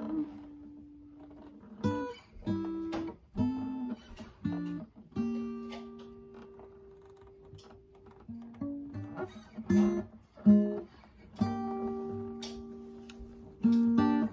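Steel-string acoustic guitar played without singing: chords struck one at a time and left to ring, two of them held for two or three seconds.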